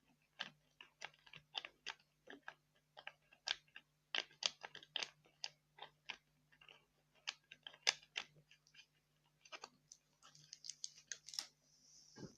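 Close-miked ASMR trigger sounds: a dense, irregular run of crisp clicks and crunches, with a brief high hiss about ten seconds in.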